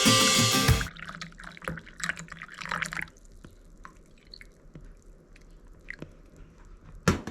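Light kitchen sounds of water dripping and small clicks and clinks of cups and utensils, busiest for a couple of seconds and then sparse, while matcha tea is being made. Guitar music ends about a second in.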